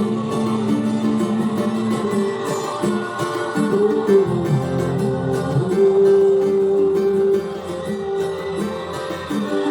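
Cavaquinho playing through the chords of a pagode song, plucked strokes over steady held lower notes.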